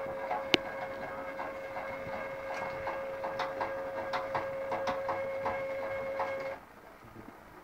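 Stepper motors of a homemade robotic arm driving its joints: a steady whine with rapid, irregular clicking over it, which stops suddenly about six and a half seconds in.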